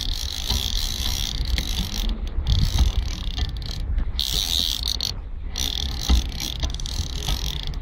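Fly reel's click drag rattling steadily as the hooked sea trout pulls line, pausing briefly three times, over a low wind rumble on the microphone.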